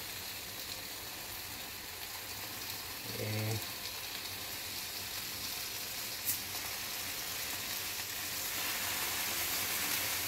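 Thick-cut bacon strips sizzling in a hot skillet, a steady frying hiss that grows louder about eight seconds in. A short murmur of voice about three seconds in and a sharp click a little after six seconds.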